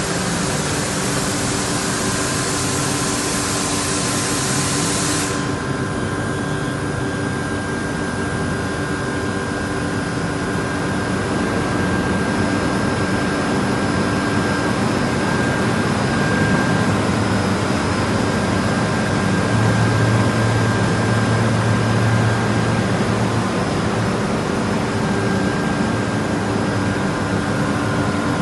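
Atlas Copco air compressors running steadily and loudly with a constant hum and whine, with a hiss over them for the first five seconds that cuts off suddenly.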